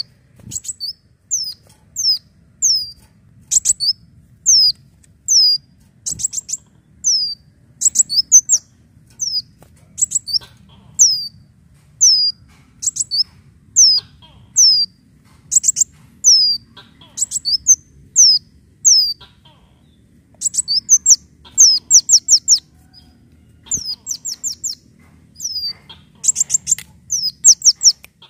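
Sunbird (kolibri daun) calling without pause: high, thin notes that each slide downward, given singly or in quick runs of three to five, several every second.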